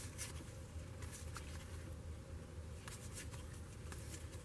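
Trading cards being slid and flipped through by hand: a few faint, brief swishes and rustles of card stock over a steady low hum.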